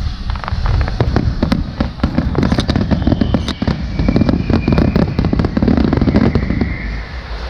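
Aerial fireworks bursting in rapid succession: many bangs and crackles over a low rumble, with a thin whistle running through the middle.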